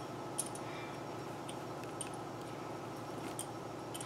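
A few light metallic clicks as a small wrench works the nut of a wire rope clamp on steering wire rope, over a steady background hum.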